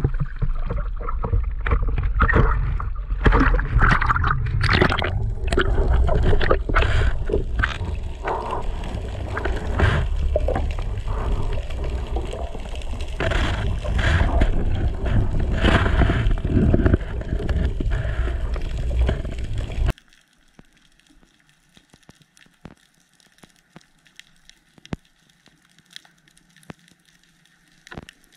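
Seawater sloshing and splashing around the camera with many sharp splashes. About two-thirds of the way in it cuts off suddenly to quiet underwater ambience with faint scattered clicks.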